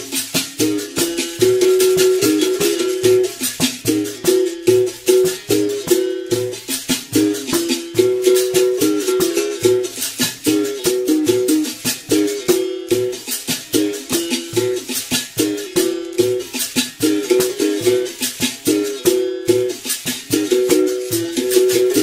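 Berimbau played in a steady, repeating capoeira rhythm, the struck wire stepping between two or three notes, with a caxixi basket rattle shaking along with the strokes.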